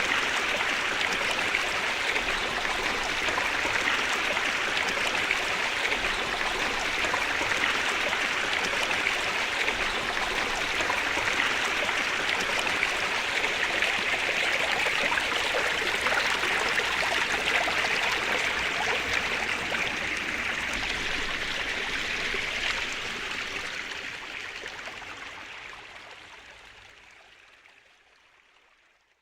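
Waterfall: a steady rush of falling water, fading out over the last six seconds or so.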